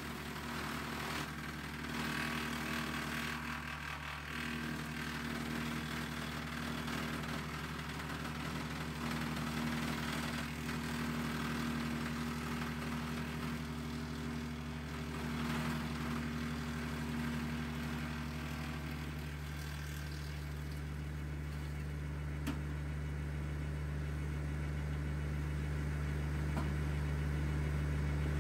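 An LS MT122 tractor's 22 hp diesel engine runs steadily, driving a 4-inch PTO wood chipper. For roughly the first twenty seconds the chipper is chewing through green cedar limbs with a loud grinding rush. Then the chipping noise falls away and the chipper spins empty over the engine's steady drone.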